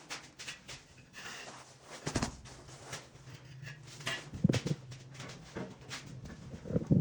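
Irregular knocks, taps and scrapes of hand tools on floor tile and mortar during tile laying, the loudest knocks about two seconds in, midway and near the end, over a faint low steady hum.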